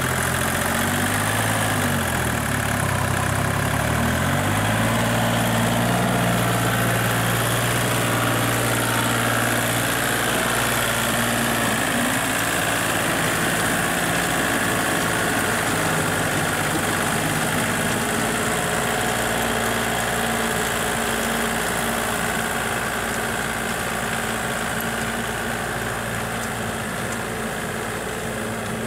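Small Kubota tractor's diesel engine running steadily while pulling a rear rotary tiller through wet soil. The engine note drops briefly and comes back up about two to four seconds in. It fades slightly near the end as the tractor moves away.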